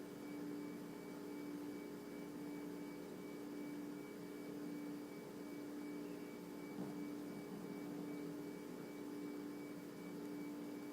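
Faint, dainty snoring of a small sleeping dog, soft breaths swelling gently about every second and a half, under a steady electrical hum.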